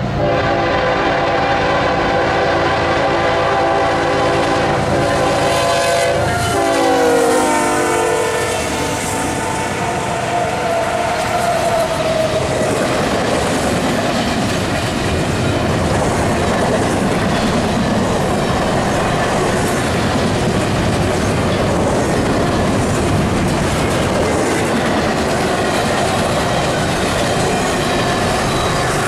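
Diesel locomotive horn sounding a long chord of several tones as a six-unit CSX lash-up passes, its pitch dropping sharply about seven seconds in as the lead locomotive goes by. The horn fades out, giving way to the steady rumble of the locomotive engines and then the intermodal well cars rolling past, with wheels clicking over the rail joints.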